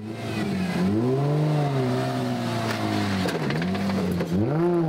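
Nissan 350Z's V6 engine being revved: it rises and holds high for about two seconds, then drops and is blipped up twice more near the end.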